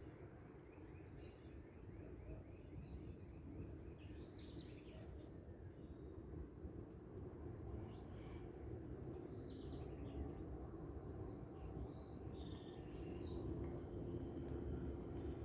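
Many small birds chirping and calling over a steady low rumble, with a fast run of repeated notes starting about a second in and lasting a couple of seconds.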